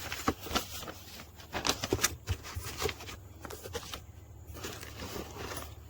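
Cardboard box and plastic packaging being handled while a new chainsaw is unpacked: irregular rustling, crinkling and light knocks, with a couple of longer crackling stretches around two seconds in and near the end.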